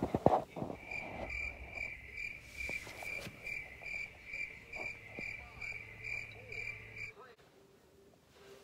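Cricket chirping: a steady run of short high chirps, about three a second, that stops abruptly about seven seconds in.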